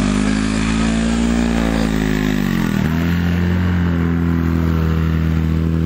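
Portable fire pump's engine running hard. Its pitch rises a little, then drops sharply about three seconds in and runs on steady at a lower speed.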